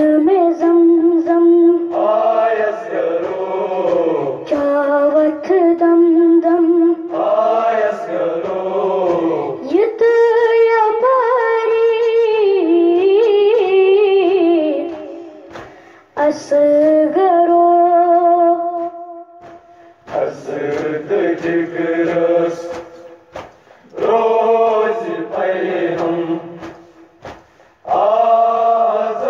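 A boy's voice chanting a noha, a Shia lament in Kashmiri, unaccompanied, in long melodic phrases of a few seconds each with short breaths between them.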